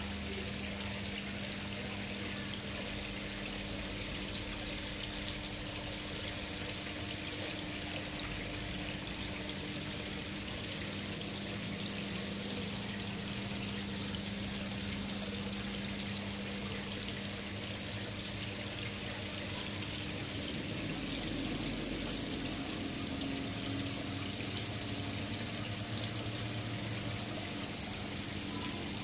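Water pouring and trickling steadily into a koi pond, with a steady low hum underneath.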